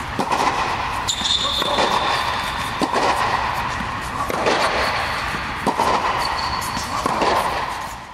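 Tennis shots on an indoor hard court: ball hits and bounces as repeated sharp knocks, with brief high squeaks from tennis shoes on the court surface.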